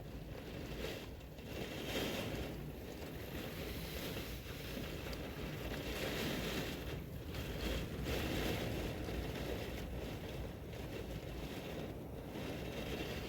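Typhoon wind gusting: a steady rushing noise that swells and eases every few seconds.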